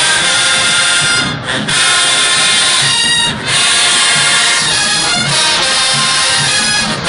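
Marching band playing loudly: massed brass, with trumpets and sousaphones, sounding full chords. The sound drops out briefly twice, about one and a half and three seconds in.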